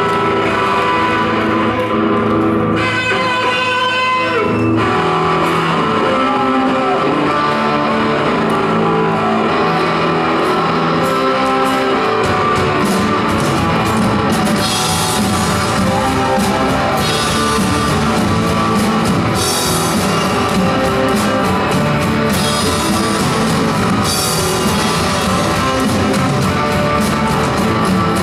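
Rock band playing: guitar chords ring out, then the drums build up about twelve seconds in, with cymbal crashes from about fourteen seconds on.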